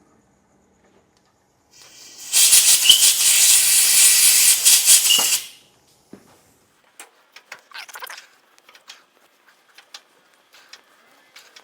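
Compressed-air blow gun blasting a hiss of about three seconds to clear chips out of a freshly tapped hole, then light scattered clicks and ticks.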